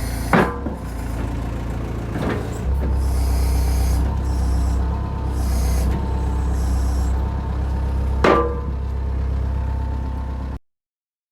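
Hitachi EX100-5 excavator running, its engine a steady low drone that grows louder about two and a half seconds in, with a high hiss coming and going and three sharp clanks. The sound stops abruptly near the end.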